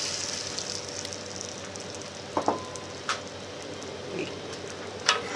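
Beaten eggs sizzling softly in butter and oil in a hot frying pan, the sizzle settling after the pour. Three sharp clicks of utensils come in the second half.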